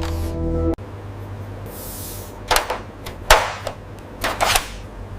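Sharp clicks and clacks of parts being fitted and handled during PC case assembly, about six of them in two clusters, over a steady low hum. A held tone with several pitches cuts off suddenly just before the first second.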